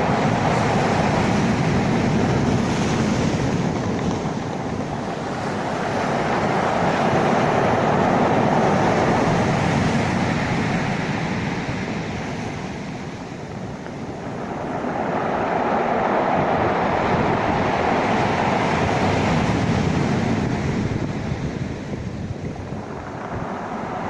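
Sea waves washing in a slow, continuous rush that swells and eases about every eight seconds, with wind noise on the microphone.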